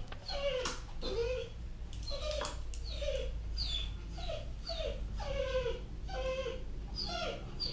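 Dog whining in a long string of short calls, each one falling in pitch, about two a second.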